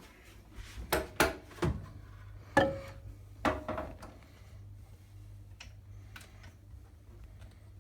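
A run of hard clunks and knocks, about six in under three seconds, two of them ringing briefly: a plastic microwave steam cleaner being handled and set into a microwave oven.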